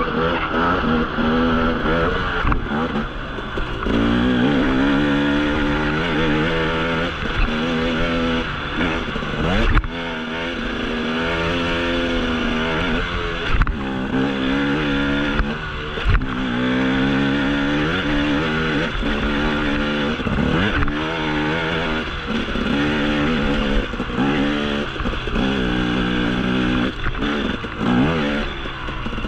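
2016 Husqvarna TE250 single-cylinder two-stroke dirt bike engine running under throttle on a dirt trail, its pitch rising and falling every second or two as the rider works the throttle and gears. A few sharp knocks from the bike over bumps.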